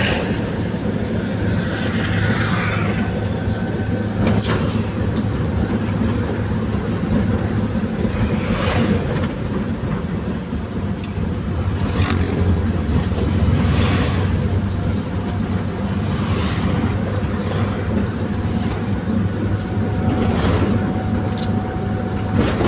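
Steady road and engine rumble of a vehicle travelling along a highway, with wind noise on the microphone and several brief swells of noise as traffic goes by.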